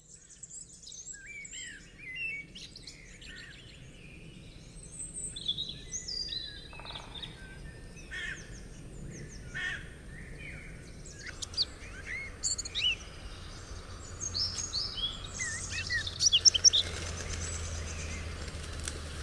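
Many songbirds chirping and singing in quick overlapping calls. A low steady hum and a soft hiss build in underneath from about halfway through.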